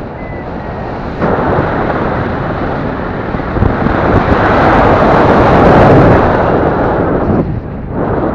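Wind rushing and buffeting over the camera microphone of a paraglider in flight. It builds to its loudest about halfway through and drops away abruptly near the end.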